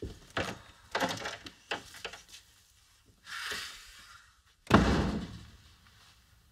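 Footsteps and light knocks, then a heavy thump about five seconds in that dies away over about a second.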